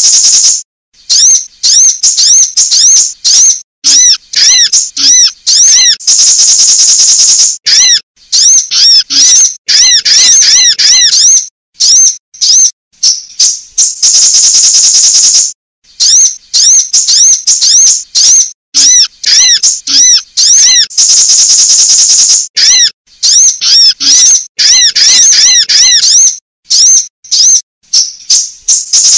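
A looped recording of female sunbird calls, played loud as a lure: bursts of rapid, high, arching chirps alternate with a long, dense, very high trill about every seven and a half seconds.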